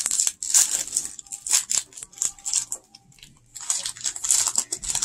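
Wrapper of a Mr. Beast milk chocolate bar crinkling and tearing as it is peeled open by hand, in irregular crackly bursts with a short lull about three seconds in.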